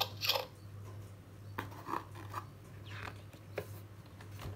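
Faint rustles and a few light clicks from a hand handling the thick board pages of a LeapFrog talking book, over a steady low hum.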